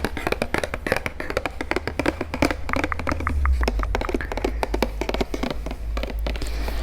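Rapid, irregular tapping and handling on a packaged Wilkinson four-blade razor, many small clicks close together, over a steady low hum.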